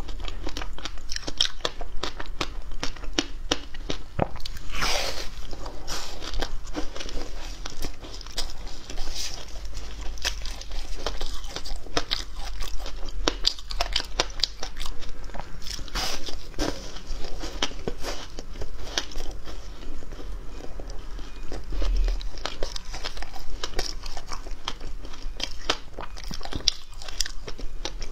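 Biting and chewing a thin sheet of frozen passion fruit ice: a dense, irregular run of crisp crunches and crackles as the ice snaps and breaks between the teeth.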